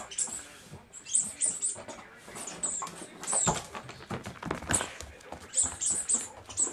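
A puppy's claws clicking and skittering on a hard kitchen floor as it runs about, in quick irregular patters, with a couple of louder knocks midway.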